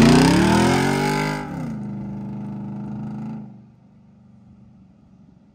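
A motor revving up with a rising pitch, dropping back about a second and a half in and holding a steady note, then fading away near the end.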